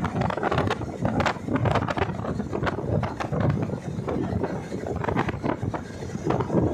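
Wind buffeting the microphone aboard an open wooden boat on open water, with short irregular knocks mixed in.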